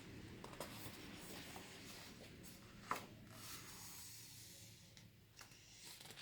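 Faint rustling of paper as a picture book's pages are handled, with one soft tap about three seconds in.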